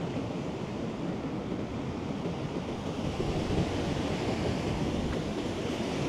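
Sea surf washing steadily at the shore, with wind noise on the microphone.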